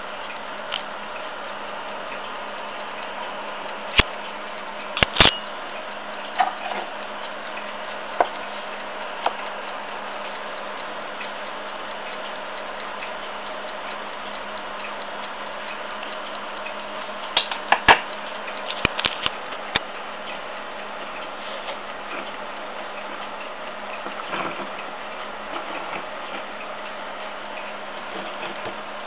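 Small Blessing mechanical alarm clocks ticking, with a few louder sharp clicks, a cluster of them about 4 to 5 seconds in and another a little past halfway.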